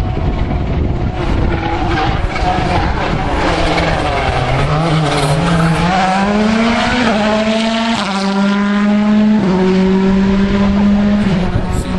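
Rally car engine revving hard as the car accelerates past. The pitch climbs for a few seconds, then holds high with small steps, over a noisy hiss of tyres on the wet road.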